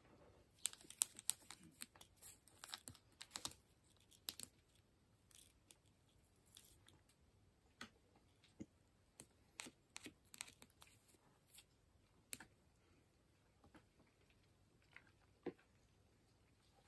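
Scattered sharp clicks and short scratches, thick in the first few seconds and then sparser, from two giant stag beetles (Tokunoshima and Sumatran hirata, Dorcus titanus) wrestling mandible to mandible on rotting wood: claws catching and scraping on the bark and hard shells knocking together.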